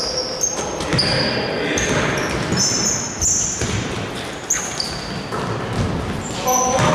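Basketball play on an indoor court: the ball bouncing and sneakers giving repeated short, high squeaks on the floor, echoing in a large hall.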